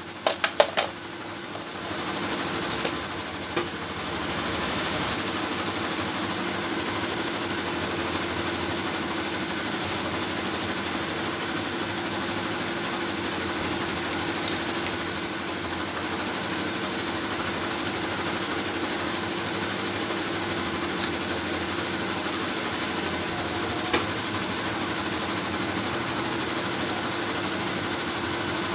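Toku pneumatic impact wrench running free on compressed air, a steady mechanical whir that settles in about two seconds in after a few sharp clicks, with a couple of single knocks later on. The wrench spins after its repair, so its air motor is working again.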